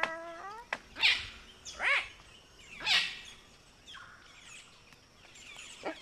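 Palm cockatoo calling: a rising whistled call ends just after the start, followed by three loud, harsh screeches about a second apart. A fainter call starts near the end.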